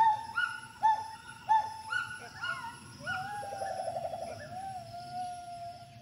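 A gibbon calling: a run of short hooting whoops that rise and fall, about two a second, then a long held note with a fast quavering trill in its first part. The calls are the gibbon's threat display at an intruding binturong.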